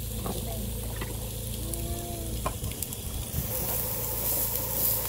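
LA galbi (thin-cut beef short ribs) sizzling on a hot griddle, the sizzle coming up strongly about three seconds in, over a steady low hum.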